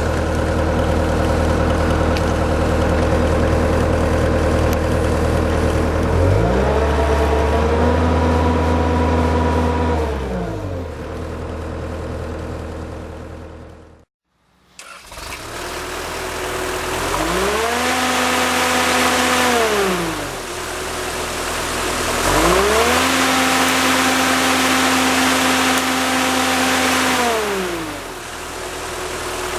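A 2013 Terex PT70 compact track loader's diesel engine idles and is revved up and back down three times, with a brief cut-out near the middle.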